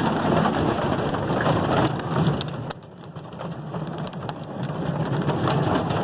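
Marble-sized hail pelting an all-aluminum RV roof and walls, heard from inside: a dense, loud clatter of countless small impacts. About halfway through it drops off suddenly, then builds back up.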